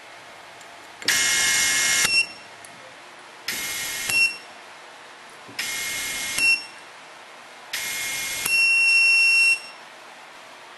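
Kilews SKD-BE brushless electric screwdriver running in four short bursts as screws are driven. Each burst ends with a brief high beep as the fastening completes and the built-in counter registers it. The last beep, near the end, is longer, lasting about a second.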